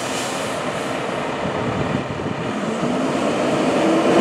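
Fire engine's diesel engine running, then revving up as the truck starts to pull out, with a slowly rising engine tone growing louder in the last second or so.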